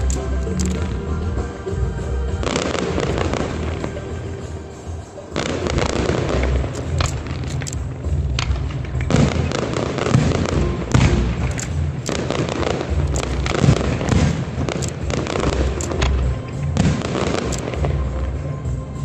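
Aerial fireworks shells bursting one after another: many sharp bangs and crackles, coming thickest in the second half. Music plays underneath.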